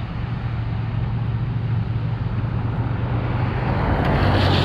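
Road traffic rumbling steadily, growing louder near the end as a vehicle comes closer.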